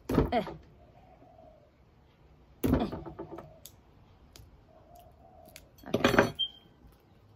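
A metal fork clicking and scraping against the plastic cap of a small paint bottle as it is pried open, with three short strained grunts of effort, the loudest sounds, about a second in, near the middle and near the end. A dove coos faintly and repeatedly in the background.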